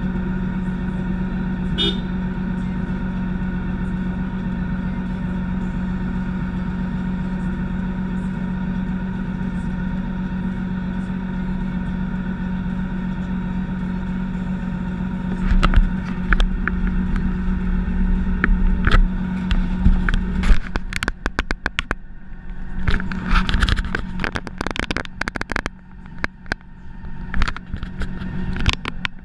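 Motorcycle engine idling steadily. About fifteen seconds in, irregular knocks and rubbing start close to the microphone as gloved hands handle the bike. Around twenty seconds in the engine hum drops away, leaving the knocks and clatter.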